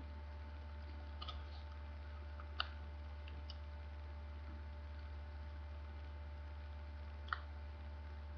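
Sheet of paper being folded and creased by hand, with three short sharp crackles of the paper about a second in, two and a half seconds in and near the end, over a steady low hum.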